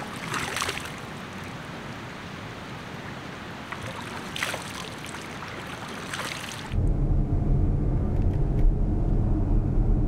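A steady outdoor hiss with a few brief rustles and clatters, then about two-thirds of the way in, a sudden change to a louder, low, steady vehicle rumble.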